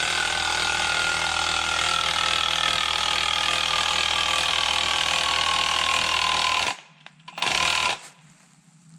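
Chainsaw running under load in a cut, its engine pitch slowly sagging. It cuts off suddenly near the end, runs briefly once more, then stops.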